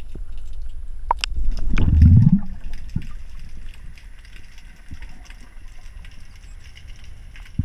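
Underwater sound picked up through a submerged camera during a spearfishing dive: a steady low rush of water, with a louder low surge of moving water about two seconds in. Sharp clicks come just before the surge, and faint scattered ticks follow.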